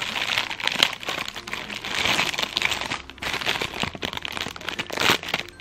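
Clear plastic packaging crinkling and crackling as it is handled and pulled open by hand.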